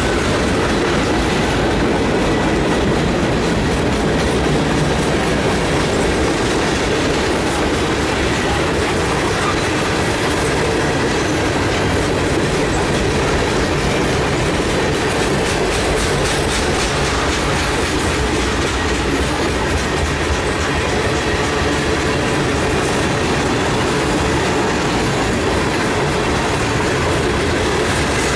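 Freight cars of a mixed freight train rolling past close by: a steady rumble of steel wheels on rail with continuous clicking from the wheels, and a faint thin high tone above it.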